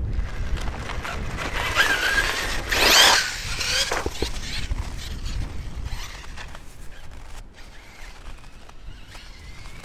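Arrma Kraton EXB RC truck's electric motor whining as the truck accelerates, sliding up and down in pitch about two seconds in and loudest about three seconds in, then fading as it drives off. A low rumble runs underneath.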